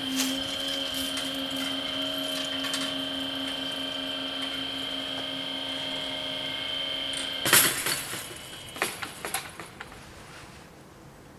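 Electric drive motors of level-crossing barriers whining steadily as the booms lower. After about seven and a half seconds the motors stop with a loud clunk as the booms come to rest, followed by a few seconds of rattling and knocking from the settling barriers.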